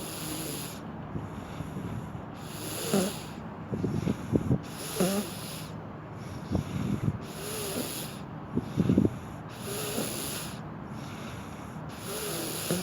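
A sleeping person snoring loudly: a steady run of breaths about a second apart, with rough, rattly snores and snorts on many of them.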